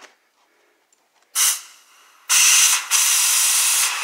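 Compressed air hissing from an air hose chuck on an inner-tube valve stem: a short burst about a second in, then a loud steady hiss from about halfway as the tube is inflated to seat the tire on the rim.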